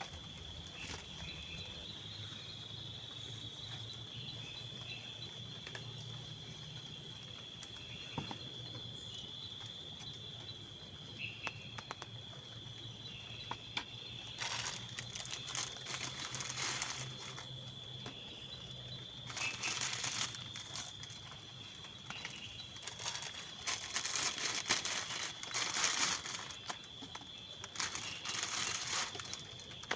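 Crinkling and rustling in irregular bursts from about halfway through, growing louder near the end, over a steady high-pitched tone.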